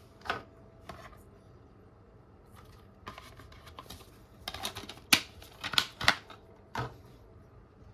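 A DVD case and its packaging being handled: a string of irregular clicks, snaps and rustles, loudest and most frequent from about four and a half to six seconds in.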